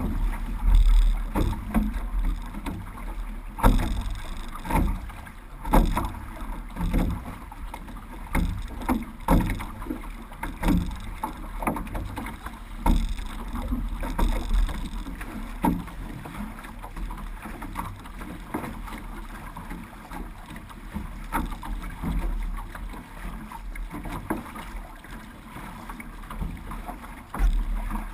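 Paddles of a six-person outrigger canoe (OC6) crew digging into the water in a steady rhythm, about one stroke a second, over the rush of water along the hull and a low rumble of wind on the microphone.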